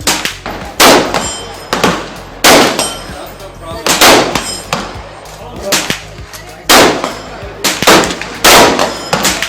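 Gunshots at an outdoor shooting range: about nine single shots at uneven intervals, some louder than others, each trailing off in an echo.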